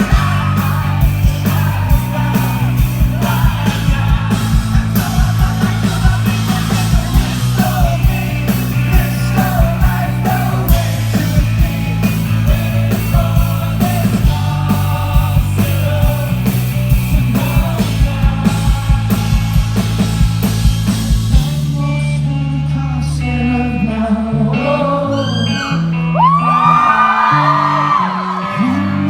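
Live rock band with a male singer performing a song. A steady drum beat drives it until about three quarters of the way through, when the drums drop out and sustained chords and singing carry on.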